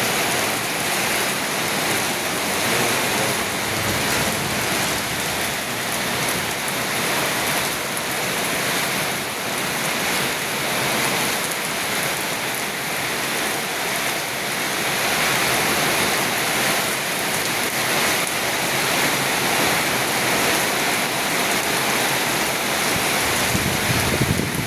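Heavy rain falling steadily, a dense, even hiss. A brief low rumble near the end.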